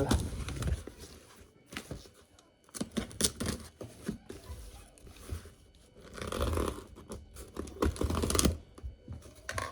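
A cardboard shipping box being opened by hand: irregular tearing, scraping and rustling with scattered clicks and knocks. It is busiest near the end.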